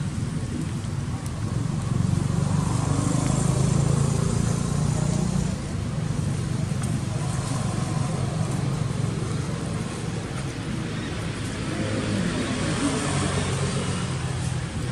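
Road traffic passing, a steady engine hum from motorbikes going by, loudest from about two to five seconds in.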